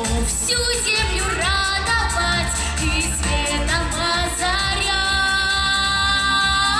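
Girl singing a pop song into a handheld microphone over a backing track. Her voice slides between notes and then holds one long note for the last couple of seconds.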